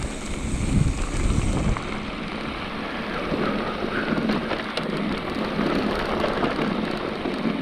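Mountain bike riding down a dry dirt singletrack: tyres rolling and crunching over the dirt, with wind rushing over the camera microphone and occasional small clicks and rattles. A heavy low wind rumble fills the first couple of seconds, then eases.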